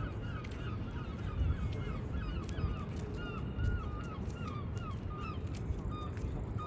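A flock of waterbirds calling from the river, with many short honking calls overlapping that thin out in the second half. Wind rumbles low on the microphone underneath.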